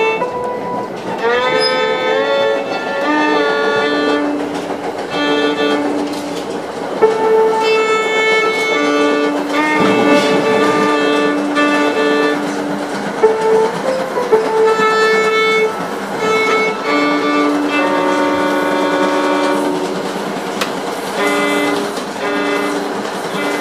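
Violin playing slow, held notes one after another, some sliding up into pitch, over a steady background hiss.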